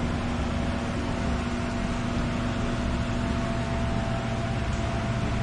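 A steady mechanical hum with a constant low tone and fainter higher tones over a noisy hiss, unchanging throughout.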